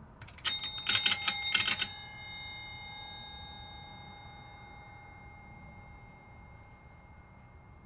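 A metal bell struck rapidly for about a second and a half, then left ringing, its tone slowly fading away.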